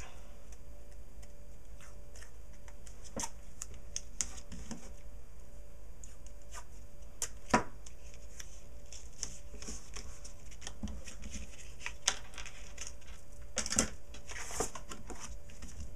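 Hands handling cardstock while pulling off and pressing down small pieces of tape: scattered light clicks, scratches and paper rustles, with one sharper click about halfway, over a faint steady low hum.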